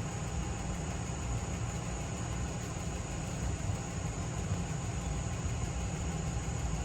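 Steady low background rumble with a faint hiss, even throughout and without any distinct drips or knocks.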